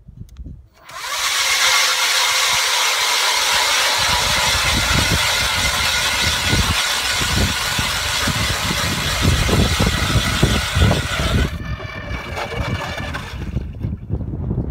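ION electric ice auger starting about a second in and drilling through lake ice, its motor running steadily under load with an irregular low rumble underneath. About two seconds before the end the sound thins out and dies away as the auger is lifted out of the finished hole and stops.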